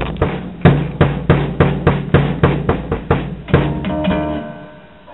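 Drum kit played in steady, evenly spaced hits about three a second, ending with a last hit about three and a half seconds in that rings out and fades away.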